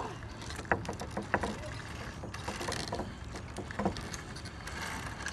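Hanging wooden rungs and ropes of a treetop rope crossing knocking and clicking as a child steps along them: a cluster of sharp knocks about a second in and another near four seconds, over a low steady rumble.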